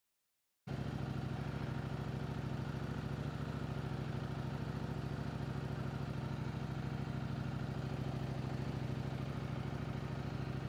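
Silence for the first moment, then the CFMoto 800MT Explore's parallel-twin engine idling steadily.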